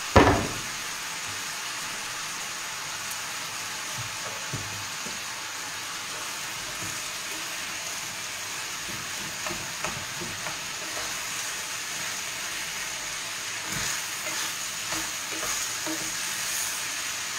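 Pork spare ribs and sausages sizzling as they brown in a steel pan, a steady frying hiss, with the meat being turned now and then. A sharp knock sounds right at the start, and there are small clicks and scrapes near the end.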